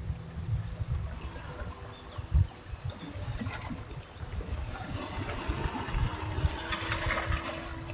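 Small sea waves lapping and trickling at the shoreline, over an uneven low rumble.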